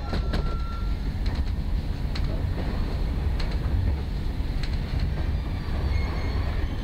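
Passenger train running along the line, heard from inside the carriage: a steady low rumble with scattered short clicks from the wheels on the track.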